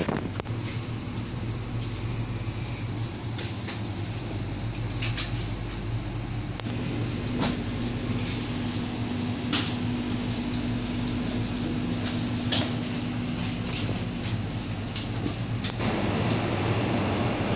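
Steady electric hum of a shop's refrigerated drinks chillers and freezers, with a few light clicks; a broader hiss comes in and the hum grows louder near the end.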